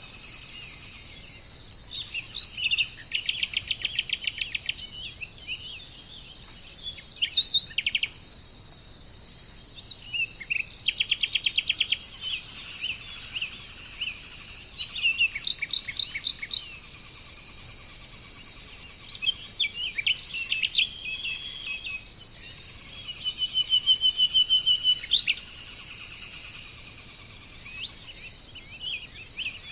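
Wild birds singing and calling: several fast trills a second or two long and bursts of short chirping notes, over a steady high-pitched drone of insects.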